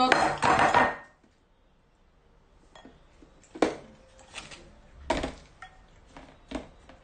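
A loud burst of sound in the first second, then a wooden spoon clinking against a large glass mixing bowl: several sharp knocks with short ringing in the second half.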